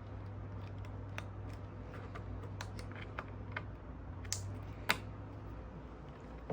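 Scattered light clicks and taps of plastic headlight parts being handled and fitted, with one sharper click about five seconds in, over a steady low hum.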